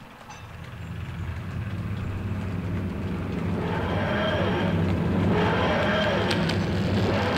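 00 gauge Bachmann Class 350 model train running into the station, its running sound growing steadily louder as it approaches. A few sharp clicks come near the end.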